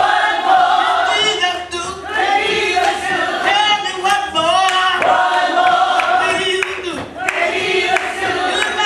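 Church congregation singing together, many voices blending in a large room.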